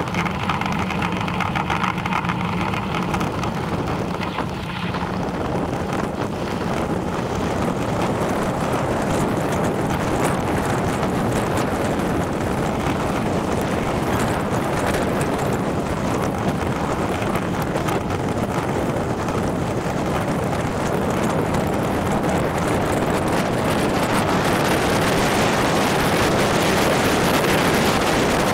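Steady wind rush on the microphone mixed with bicycle tyre and road noise while riding along a lane, growing a little louder in the last few seconds.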